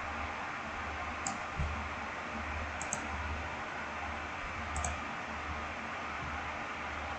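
Computer mouse clicking: a single click about a second in, then two quick double clicks, over a steady hiss and a low hum.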